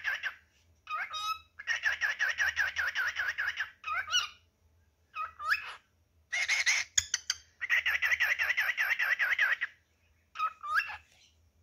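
Male cockatiel singing to call his mate: two long chattering warbles of rapid repeated notes, about six a second, with short rising whistles in between.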